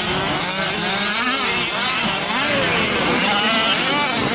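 Several 1/5-scale gas RC trucks' small two-stroke engines racing together, each revving up and down as they accelerate and lift off around the track.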